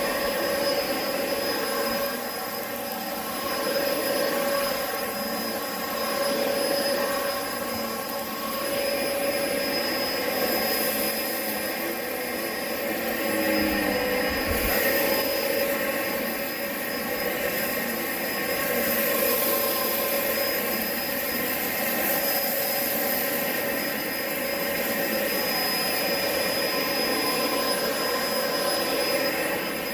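Upright vacuum cleaner running with a steady motor whine, its level rising and falling gently every couple of seconds.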